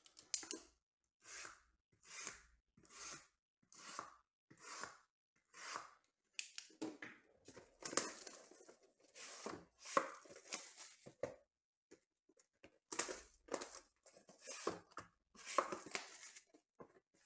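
Cellophane shrink wrap being torn and crinkled off a sealed trading-card box: a series of short rips about one a second at first, then denser tearing and crinkling, with a brief pause before a last run of rips.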